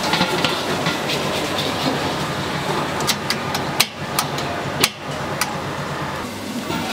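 Metal utensil knocking against a wok, about six sharp clanks in the middle of the stretch, over a steady roar of a gas burner and frying.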